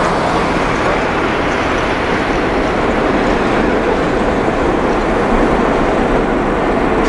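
Jet airliner engines running at taxi power, a steady, loud rushing noise that holds even throughout.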